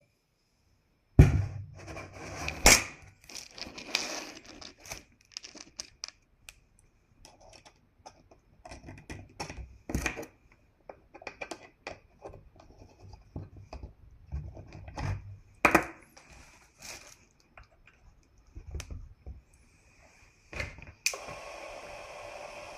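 Irregular clicks, knocks and scrapes of small hard parts and tools being handled, then a small motor starting up and running steadily about 21 seconds in.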